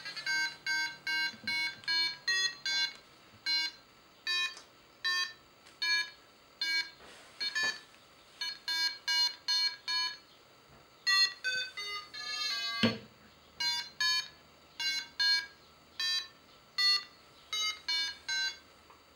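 Paragliding variometer's audio beeper sounding its lift signal as short, buzzy electronic beeps. The beeps come in uneven runs, at times two to four a second and at times slower, which marks varying rates of climb. About two-thirds of the way through there is a longer held tone, ending in a sharp click.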